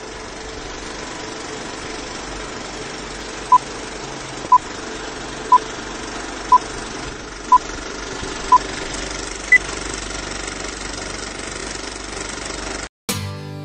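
Film countdown leader sound effect: a steady film projector whirr and rattle, with short beeps once a second, six times, then a single higher-pitched beep. The projector noise cuts off suddenly near the end.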